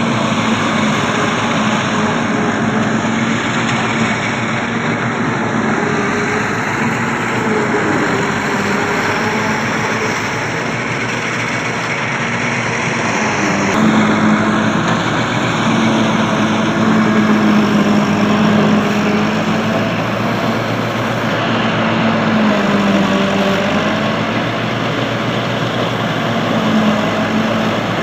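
Tractor engine running steadily under load while driving a side-mounted silage cutter that chops maize stalks fed in by hand. The result is a dense, constant machine drone with a low hum that wavers in pitch.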